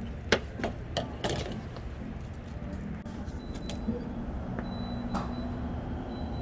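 A few sharp clicks and knocks, four in the first second and a half and one more about five seconds in, over a steady low hum.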